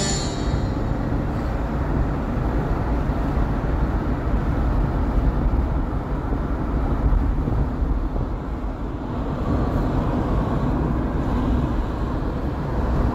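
Steady low rumble of a car driving, with road and engine noise and no breaks.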